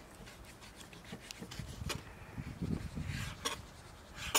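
Kitchen knife sawing the rind off a slice of smoked pork belly: soft, irregular scraping and rubbing of the blade through the meat and against a plastic cutting board, with a few light clicks of the knife on the board.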